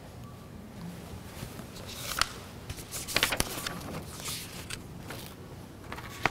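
Soft rustling and shuffling of paper notes being handled at a podium, a few brief scrapes over quiet room tone, the clearest about two, three and four seconds in.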